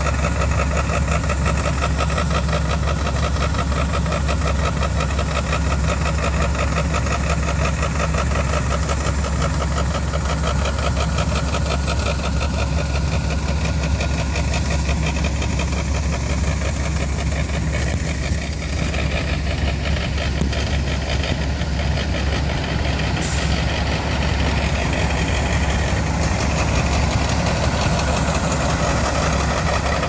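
Heavy diesel engines idling steadily, a loud low hum that barely changes, from a farm tractor and a semi truck parked at a corn harvest. A short high hiss sounds about three-quarters of the way through.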